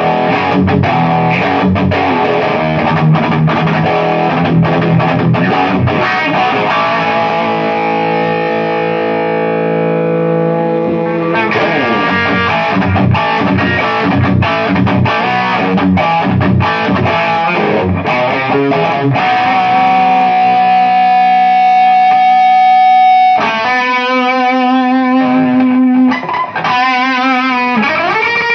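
Electric guitar played through a VHT 2150 power amp and Egnater M4 preamp (VX module) with a Rockett Animal overdrive pedal, giving a punchy, crunchy distorted tone. It plays fast choppy riffing, then held chords and notes, and near the end sustained notes with wide vibrato.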